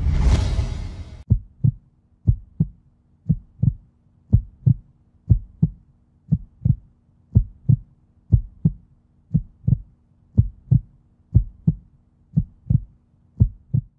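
Heartbeat sound effect: a steady lub-dub double thump about once a second over a faint low drone. It comes in after a brief rushing swell that fades in the first second.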